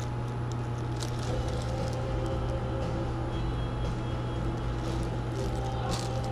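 Plastic garment bags rustling and clothes hangers sliding along a metal clothes rack as clothes are flipped through, over a steady low hum.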